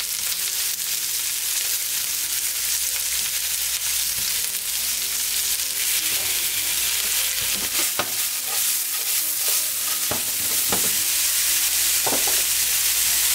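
Sliced onion and tomato sizzling in hot oil in a pan as they are stir-fried, with a spatula scraping and knocking against the pan a few times in the second half.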